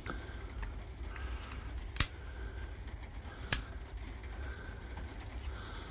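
Two sharp metallic clicks about a second and a half apart as the old spot-welded nickel strips are pried off the lithium-ion cells of a DeWalt DCB183 18V battery pack.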